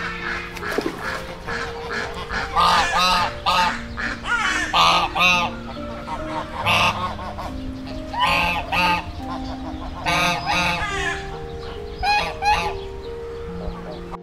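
A flock of American wigeons calling: short, arching, honk-like calls repeated in clusters of two or three, again and again.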